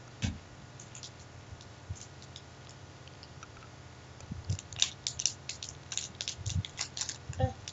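Close, irregular clicking: a few scattered sharp clicks, then from about four seconds in a dense run of sharp clicks lasting about three seconds, over a low steady hum.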